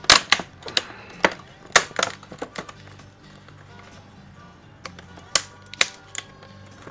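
Stiff clear plastic clamshell packaging being pried and cracked open by hand: a quick run of sharp plastic cracks and snaps in the first couple of seconds, then a few more near the end.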